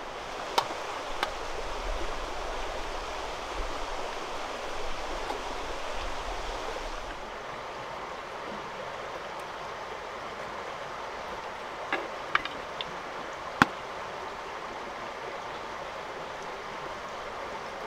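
A stream running steadily, with a few sharp clicks and knocks, two near the start and a small cluster about two thirds of the way through, the last of them the loudest.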